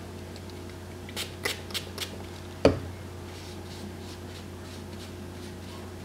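Hands handling things at a table: four short rasping scrapes about a quarter second apart, then a single sharp knock, the loudest sound, just under three seconds in, over a steady low hum.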